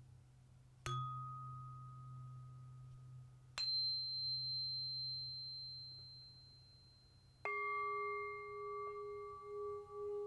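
Tuning forks struck one after another, each ringing a single clear tone that slowly fades, the second much higher than the first. About three-quarters of the way in, a Tibetan singing bowl is struck and rings several tones at once with a slow wavering beat.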